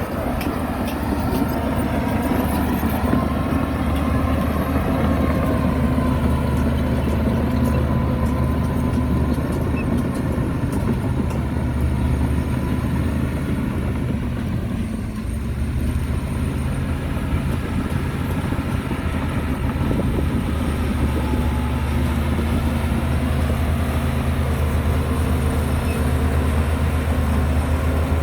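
Heavy diesel engine of earthmoving machinery running steadily, easing off briefly about halfway through and then picking up again.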